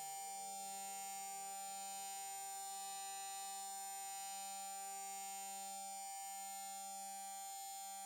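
Quiet, steady electronic drone of many held tones, with a thin high-pitched whine on top and no beat. It is a synthesized sound imitating what some people hear during partial epileptic seizures.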